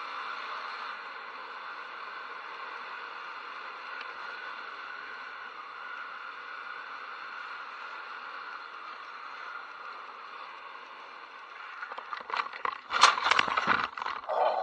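Yamaha YBR motorcycle riding along, a steady engine and road noise, then near the end a quick run of sharp knocks and scraping as the bike crashes and goes down on the road.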